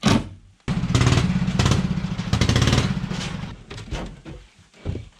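Cordless power driver running screws into the wooden door, a fast-pulsing mechanical buzz of about two seconds after a sharp click, then a few scattered knocks and clunks.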